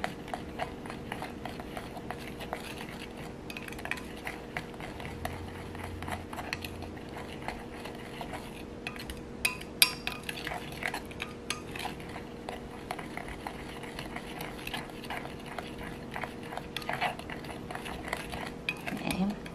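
A utensil stirring dry powder in a glass measuring cup, with repeated scraping and small clinks against the glass, one sharper clink about halfway through. A steady low hum runs underneath.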